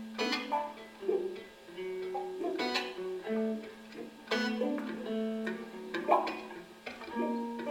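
An electric guitar quartet playing new music: held low notes overlapping, broken by sharp plucked attacks that ring out high, roughly one a second.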